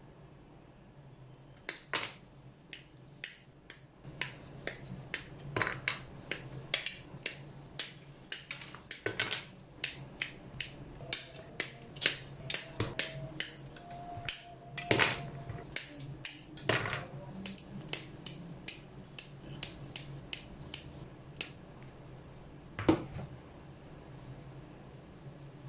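A quick run of sharp plastic clicks and snips, about two a second, from working a plastic model kit by hand.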